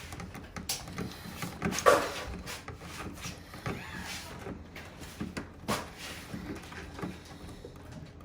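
Scattered clicks and knocks from handling tools and materials, with a louder knock about two seconds in.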